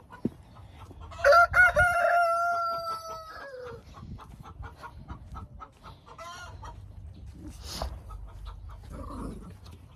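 A rooster crows once: one long held call of about two and a half seconds that drops in pitch at the end. Hens cluck softly after it.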